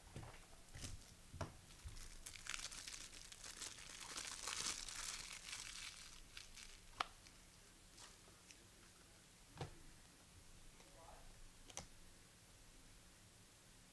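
Foil wrapper of a trading-card pack crinkling and tearing open, loudest a few seconds in, followed by a few light clicks as the cards are handled.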